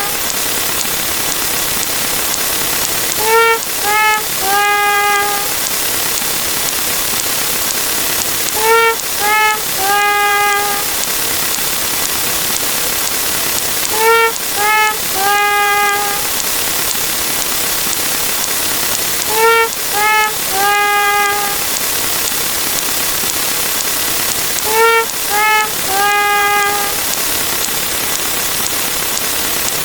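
Sad trombone sound effect, the descending 'wah-wah-wah-waaah' of three short falling notes and a long wavering last note, played five times about every five and a half seconds over a steady hiss.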